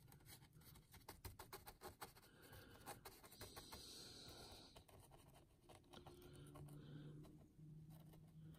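Faint scratching and soft ticking of a small paintbrush dabbing and spreading thick mud texture paste on a model base, the ticks thickest in the first few seconds.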